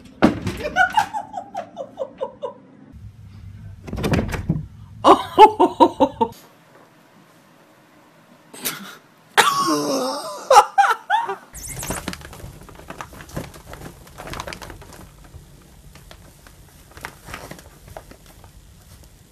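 People laughing in several separate bursts of quick repeated ha-ha pulses, the loudest about five seconds in, with quieter stretches between.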